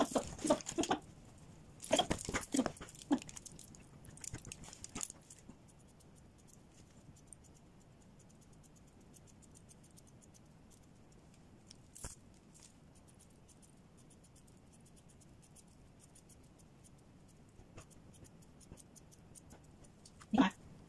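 Grooming scissors snipping a dog's coat in scattered soft clicks. Louder bursts of handling noise come in the first few seconds and once near the end.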